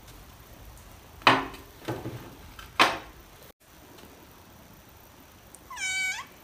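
Dishes set down on a glass-topped table: two sharp clacks with a short ring, about a second and a half apart, and a softer knock between them. Near the end, a short high squeak that dips and rises in pitch.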